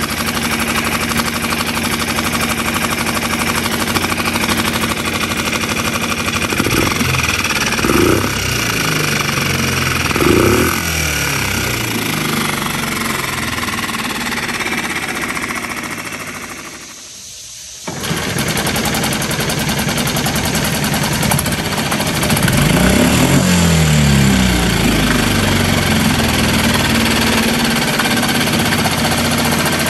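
Hangkai 6.5 hp four-stroke outboard running in a water test barrel with its idle speed freshly turned down, the propeller churning the water. It revs up and back down twice, drops away briefly about two-thirds of the way through, comes back abruptly, and revs again later.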